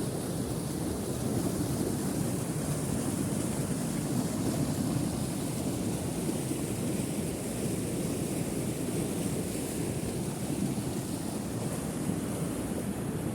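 Steady rushing of river water, an even noise heaviest in the low range with no breaks or separate events.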